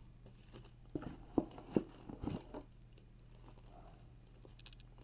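Foil trading-card packs being handled and pulled out of a cardboard box: a few light knocks and crinkles in the first half, then faint scattered ticks.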